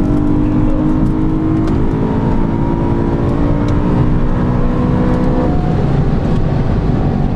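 Car engine accelerating hard, heard from inside the cabin, its note climbing steadily, then changing abruptly about five and a half seconds in, a gear change, over heavy road and wind noise.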